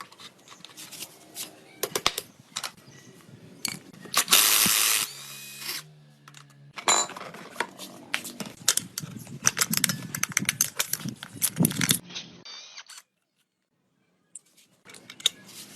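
Hand tools clinking and knocking against metal motorcycle parts in a run of sharp, irregular clicks, with a loud burst of noise lasting about a second around four seconds in.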